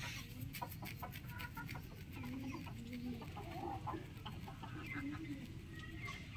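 Rooster giving short, low clucks, with a quick run of sharp clicks in the first second or so.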